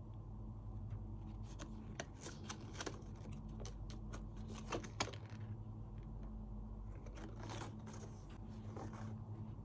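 Handling noise from a football boot turned in the hands: irregular rustling, scraping and light clicks, with a sharper click about five seconds in, over a steady low hum.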